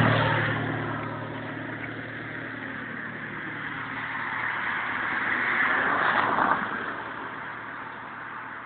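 Cars passing on a street: one engine hum fades away over the first couple of seconds, and another vehicle swells and passes about six seconds in.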